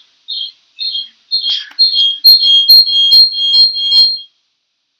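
Series of loud, high-pitched chirps. They start uneven, then settle into a quick repeating two-note high-low pattern and stop abruptly after about four seconds.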